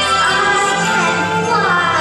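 Music from a stage musical number, its melody line sliding down in pitch near the end.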